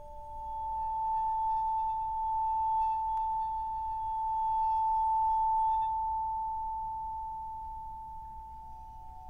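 Vibraphone bar bowed with a cello bow: one long, pure sustained note that swells and then fades. The next, lower note begins near the end.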